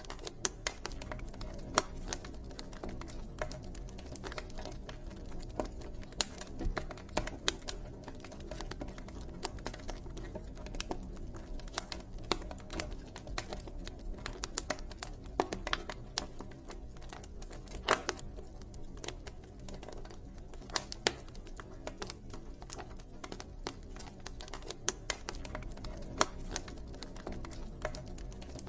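Wood fire crackling in a fireplace: irregular sharp pops and snaps over a low steady rumble.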